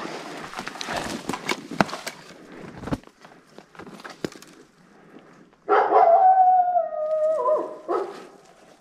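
Crackling and snapping of twigs and branches brushed aside while moving through conifer undergrowth, then about six seconds in a single loud, long howl lasting about two seconds, falling in pitch in steps.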